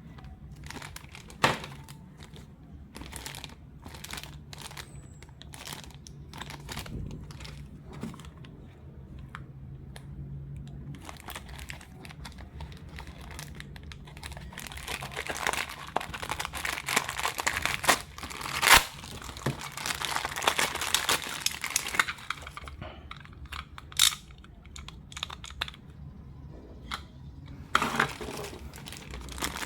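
Toy packaging being unwrapped and torn open: scattered clicks and taps at first, then dense crinkling and tearing from about halfway in, with a few sharp cracks.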